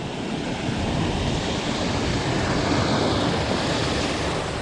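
Wind blowing across the microphone: a steady rushing noise that swells a little in the middle and eases slightly near the end.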